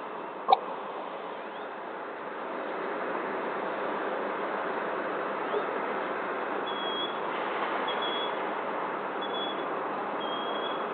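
Steady hum of distant traffic. A sharp, short sound comes about half a second in, and four short high notes follow about a second apart in the second half, with a few faint rising bird chirps.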